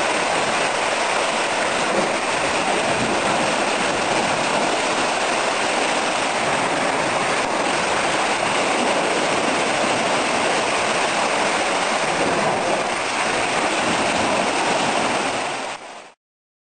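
Water surging and sloshing in a rock-walled pool, set in motion by the seismic waves of a distant earthquake: a steady rushing noise that cuts off suddenly near the end.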